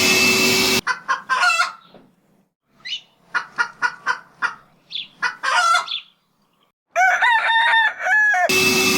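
A chicken clucking and squawking in a run of short, sharp calls, ending in longer rising-and-falling calls. It cuts in abruptly over a motor's steady whining rush, which stops less than a second in and comes back unchanged near the end.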